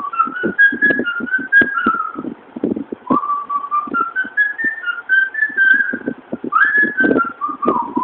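A person whistling a tune: runs of short notes climbing in steps and falling back, each phrase starting over from a lower note, over short low thumps in a loose rhythm.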